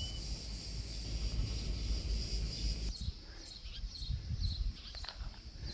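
Insects buzzing steadily at a high pitch, with wind rumbling on the microphone that stops suddenly about halfway; a few short bird chirps in the second half.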